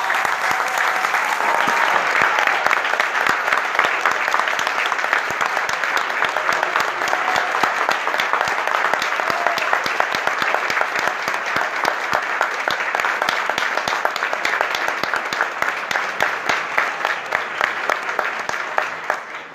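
Concert audience applauding: dense, steady clapping that thins near the end into fewer, separate claps.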